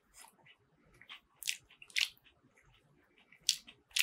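Chewing a mouthful of air-fried vegetable croquette with a crisp crust: several short, separate crunches with gaps between them.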